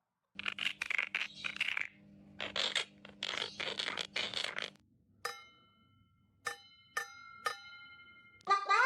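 Scraping and rattling for a few seconds, then about four sharp metallic clinks, each leaving a bright ringing tone that hangs on briefly.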